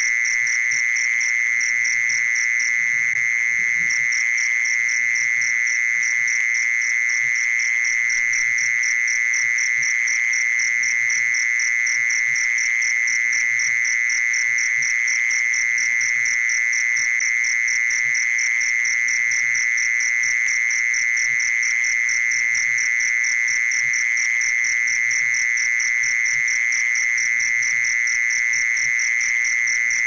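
Mole cricket and cricket calls, played as a trapping lure: a steady, unbroken high trill with a faster pulsing, even higher chirp over it that briefly fades about three seconds in.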